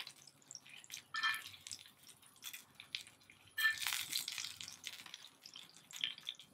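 Steel tongs scraping and clinking on a hot steel cooking disc as grilled nopal pads are lifted off: two louder scrapes, about a second in and again past the middle, the first with a short metallic ring. A light crackling sizzle from the oiled disc runs between them.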